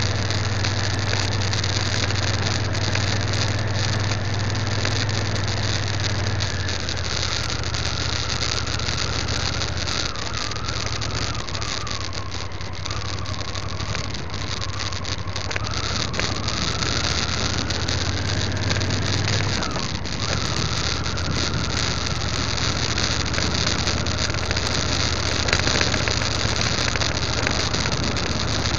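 Motorcycle riding a gravel track: a steady low engine hum with a fainter higher whine that dips and then rises partway through, over constant road and wind noise with scattered small ticks.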